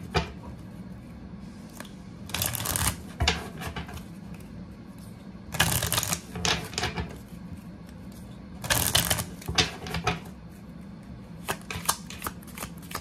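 A deck of oracle cards riffle-shuffled by hand: three quick bursts of rapid flicking cards, about three seconds apart. Near the end come a few light single clicks and taps as the deck is split and handled.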